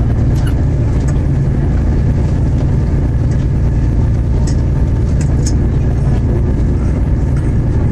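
Inside a Class 221 Super Voyager diesel-electric train: the steady low rumble of its underfloor diesel engine and wheels on the rails while it runs. A few faint short squeaks come through at about half a second, one second and five seconds in.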